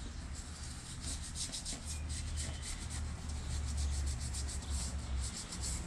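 Cloth rag wiping back and forth over the painted cowling of a Yamaha four-stroke outboard, a quick run of short scrubbing strokes as acetone strips grease and dirt from the paint. A low steady rumble sits underneath.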